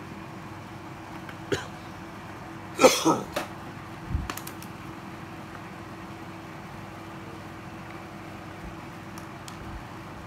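Handling of used cordless drills: a few sharp clicks and a low knock over a steady low hum. The loudest sound is a short, rough burst about three seconds in.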